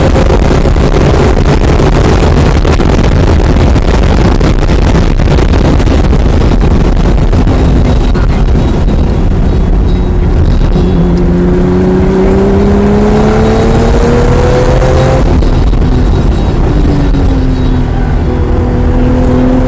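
Onboard sound of a 1996 Porsche 993 Turbo Ruf THR's twin-turbo flat-six at track pace. The first half is loud wind and road noise at high speed. After that the engine note rises steadily as the car pulls out of a corner, drops away about fifteen seconds in, and picks up again shortly after.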